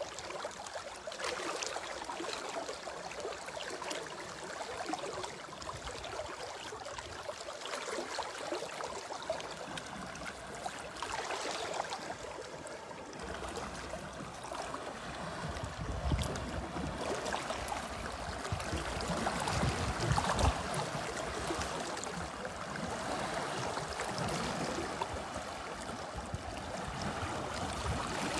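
Steady rush of a fast-flowing, high river, with an elephant splashing as it wades through the water.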